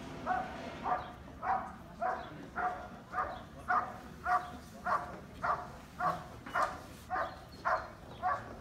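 A large dog barking steadily at a protection-sport helper (decoy), short sharp barks evenly spaced at about two a second.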